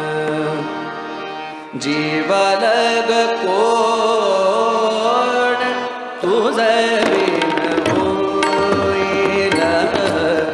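Harmonium holding a chord, joined about two seconds in by a man's voice singing a devotional melody with long sliding ornaments, to a drum accompaniment; the voice enters again strongly a little past the middle.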